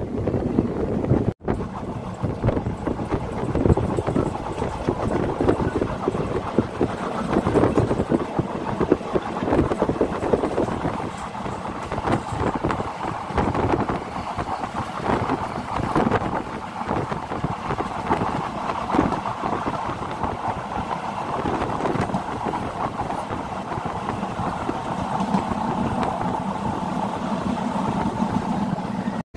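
Express passenger train running along the line, heard from inside a coach: wheels rattling over the track with wind rushing past.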